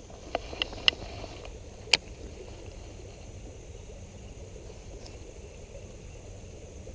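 River water running steadily, with four sharp clicks in the first two seconds.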